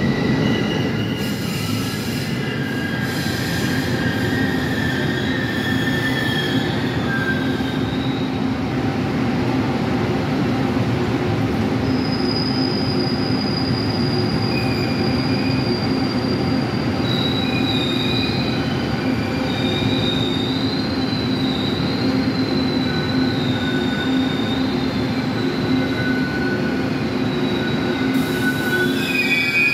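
Taiwan Railways E1000-series push-pull Tze-Chiang express rolling into the station: a steady low rumble of the carriages over the rails, with high-pitched squeals that come and go and waver in pitch as the train slows.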